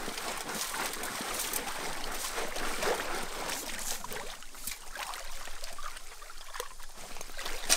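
Creek water sloshing and splashing as a floating sifting screen full of gravel is shaken back and forth to wash it, with small clicks of stones rattling on the mesh. It dies down after about five seconds.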